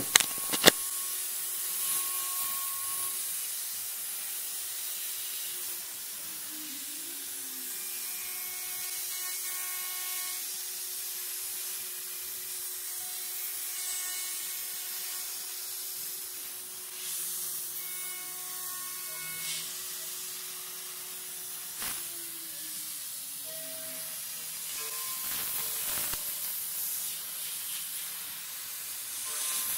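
CNC router spindle milling acetate eyeglass frames: a steady cutting hiss with chips spraying, under a faint machine hum that glides in pitch twice. A couple of sharp clicks stand out, one right at the start and one about two-thirds through.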